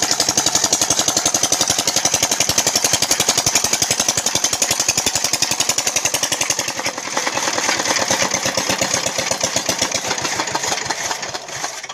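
Single-cylinder Petter-type diesel engine running a chaff cutter, a rapid, even knocking beat. About seven seconds in the deep part of the beat thins out while the knocking carries on.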